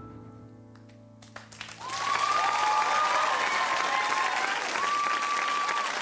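The song's last held chord dies away, and about a second and a half in an audience breaks into loud applause with cheering and whistles.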